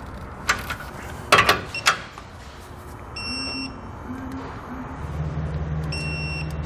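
A few sharp wrench clicks on the axle bracket bolts, then two short high beeps about three seconds apart, the signal of a digital torque wrench reaching its set torque. A low steady hum comes in about five seconds in.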